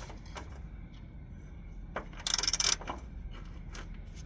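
Hand tools working on a pickup's steering shaft: a few light metallic clicks and one short metallic rattle about two seconds in.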